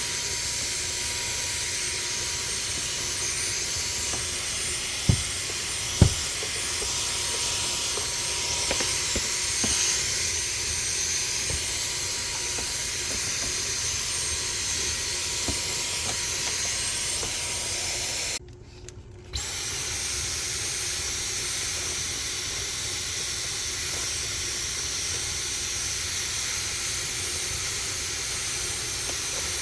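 Vacuum cleaner running with a steady rushing hiss as it sucks dust from refrigerator condenser coils, with two sharp knocks about five and six seconds in and a brief dip of under a second a little past the middle.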